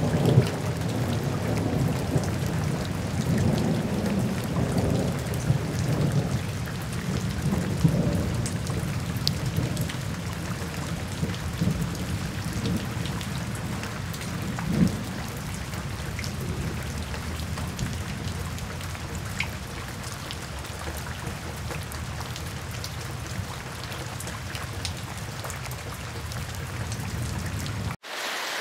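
Steady rain with low rolling thunder that swells and fades over the first half. Near the end the sound cuts out for an instant and gives way to a lighter rain hiss without the rumble.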